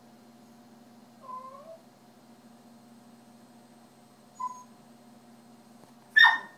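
West Highland White Terrier whining for attention: a short rising whine about a second in and a brief one a few seconds later, then a loud, sharp bark near the end, the loudest sound.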